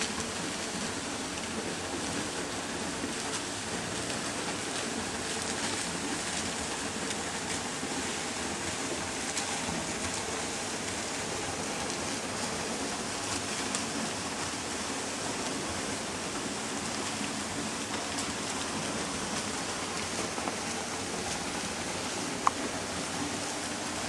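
Steady rushing and splashing of water running down a partly frozen waterfall, with one sharp click near the end.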